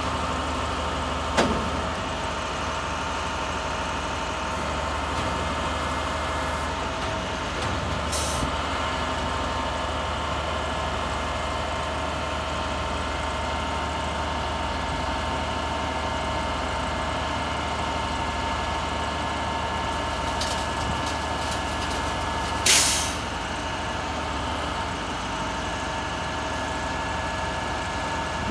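Grapple truck's diesel engine running, with a steady hydraulic whine as the dump body is raised. A knock sounds about a second in, a short air hiss comes about eight seconds in, and a louder hiss of air comes near the end.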